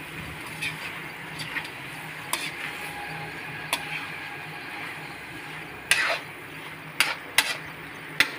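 Spatula stirring and scraping jackfruit curry in a metal kadhai over a steady sizzle, working the bottom so the masala doesn't stick. The spatula knocks sharply against the pan now and then, loudest about six seconds in and twice around seven seconds.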